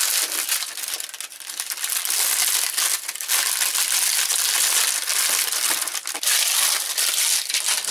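Plastic bag and bubble-wrap packaging crinkling loudly as it is pulled and crumpled off a salt lamp's base.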